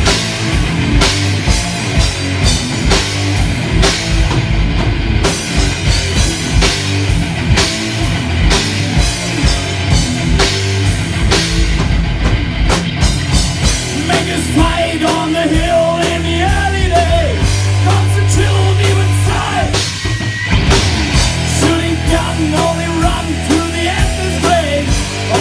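Loud heavy rock music with a driving drum kit and distorted band sound; about halfway through, a wavering melody line comes in over it.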